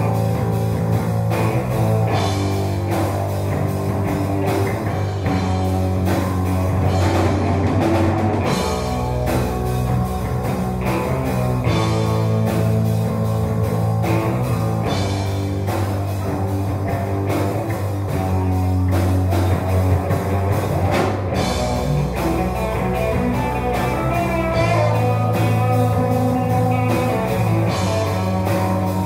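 Rock band playing live: electric bass, electric guitar and drum kit, over a heavy, steady bass line.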